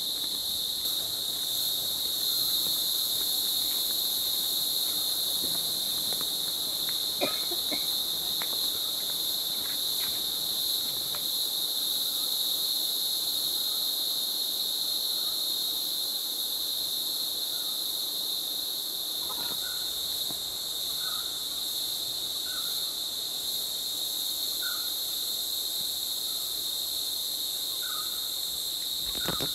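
Steady high-pitched chorus of forest insects, a continuous drone. From about two-thirds of the way in, a faint short call repeats about every second and a half.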